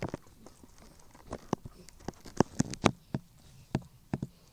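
Mother dog licking and chewing at a newborn puppy's birth sac: an irregular run of short, wet clicks and smacks.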